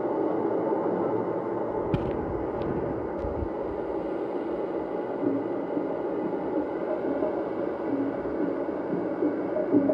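Shortwave AM reception from a JRC NRD-525 receiver: steady hiss and static with the broadcast faded to faint traces, and a few sharp clicks about two to three seconds in.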